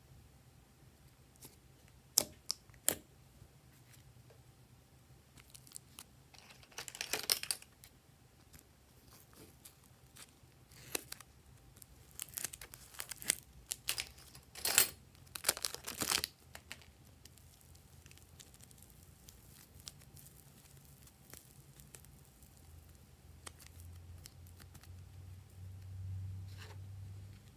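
Slime and soft clay handled in a glass bowl: scattered sticky clicks, then crackly, tearing sounds in short runs, busiest in the middle stretch as the clay is pulled and pressed into the slime.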